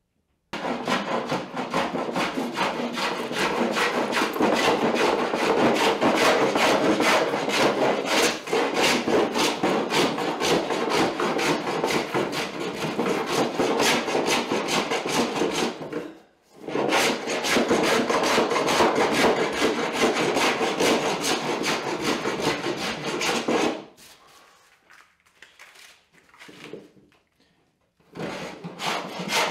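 Wooden hand plane shaving the face of a board in steady strokes, flattening it. The planing stops briefly about halfway through, drops to a few faint sounds for several seconds near the end, then starts again.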